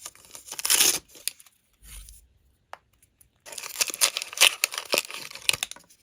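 Packaging being torn open and crinkled by hand, in two spells of rustling: a short loud one about a second in and a longer one in the second half.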